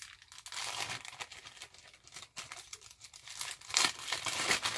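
Clear plastic parts bag crinkling as hands pull it open and work the wires and header pins out of it, loudest near the end.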